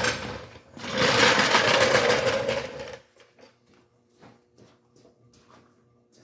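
Reciprocating saw cutting through the car's sheet-metal body in two bursts, the second about two seconds long, then stopping; light clicks and knocks follow.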